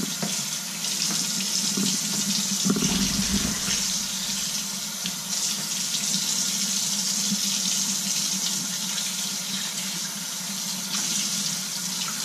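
Kitchen tap running steadily into a stainless steel sink as salmon fillets are rinsed under the stream, water splashing off the fish and the sink bowl.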